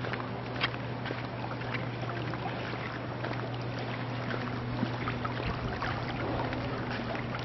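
Outdoor poolside ambience: a steady hiss like moving water, under a constant low hum, with a few small clicks.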